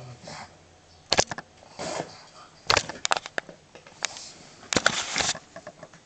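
A pug snuffling and rustling, a series of short noisy bursts, with a longer cluster near the end.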